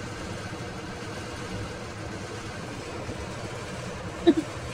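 Steady low hum, with a brief voice sound about four seconds in.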